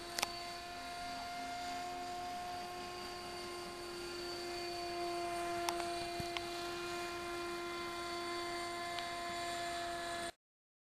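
Electric RC model helicopter flying overhead: a steady high whine from its motor and rotors, shifting slightly in pitch about four seconds in. It cuts off suddenly near the end.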